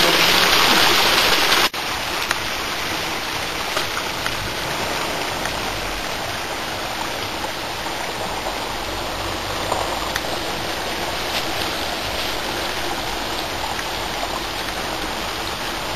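Running water rushing steadily. It is louder for the first second and a half or so, then drops suddenly to a lower, steady level.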